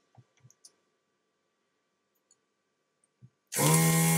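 A few faint ticks, then near the end a loud, steady buzz for about a second: the vacuum pump of a desoldering gun sucking molten solder from a resistor's joint on a circuit board, to free the failed resistor.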